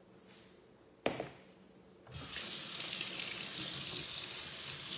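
A single sharp knock a little past one second in, then a kitchen faucet starts at about two seconds and water runs steadily into a bowl in the sink.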